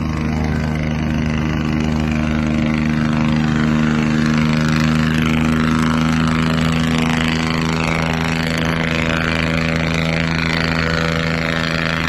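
A diesel engine running steadily: a constant low hum with a couple of strong, unchanging tones, and an even hiss over it.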